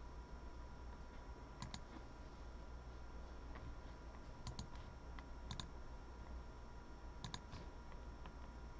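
Computer mouse clicking: a few faint, sharp clicks, several of them in quick pairs, over a steady low electrical hum.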